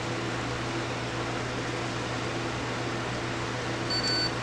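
Steady low hum, then about four seconds in the Sony CCD-TRV308 camcorder starts beeping with a high electronic warning beep, the alarm that comes with its C:31:22 error code.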